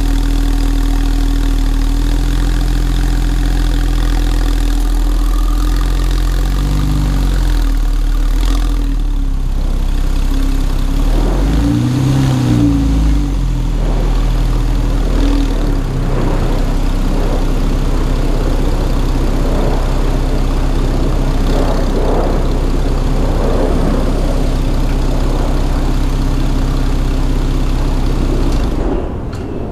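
Porsche 911 Carrera T's twin-turbo flat-six idling through its sports exhaust. For a while the pitch bobs slightly as the car creeps slowly away at low revs, then it settles back to a steady idle. The engine sound drops off abruptly near the end.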